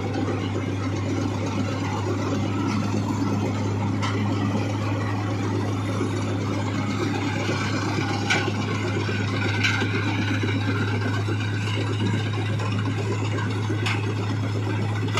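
Combine harvester's diesel engine running steadily with a constant low hum, a few faint clicks over it.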